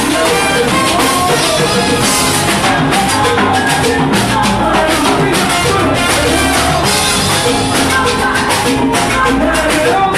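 Salsa orchestra playing live, with drum kit and percussion keeping a steady beat under the band.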